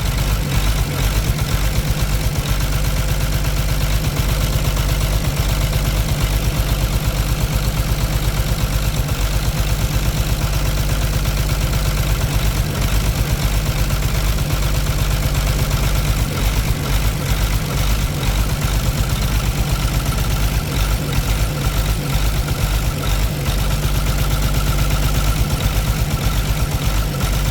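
Caterpillar C13 diesel engine idling steadily with a fast, even pulse. The engine has a misfire and heavy smoke, and is running for a check of which injector is not firing.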